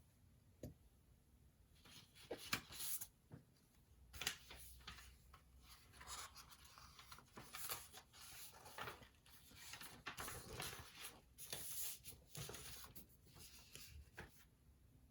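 Faint scratching of handwriting on paper, in irregular strokes that start about two seconds in and stop shortly before the end.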